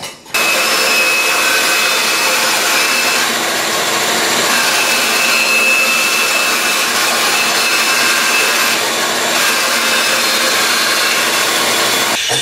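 Bandsaw ripping a board along its rip fence: a loud, steady whirring rush with a faint high whine, starting suddenly just after the start and stopping suddenly near the end.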